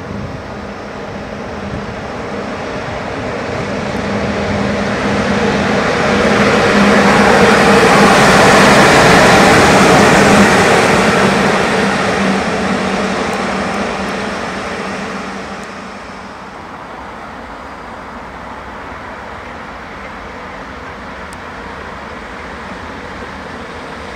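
Electric locomotive running light with no train attached, passing close by. Its rolling noise and a steady hum swell to a peak about halfway through, then fade to a low steady background.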